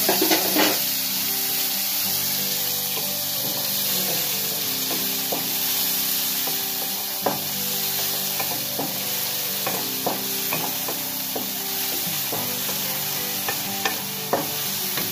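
Chopped onion and garlic sizzling in a little oil in a steel pan while a wooden spatula stirs them, scraping and knocking against the pan now and then.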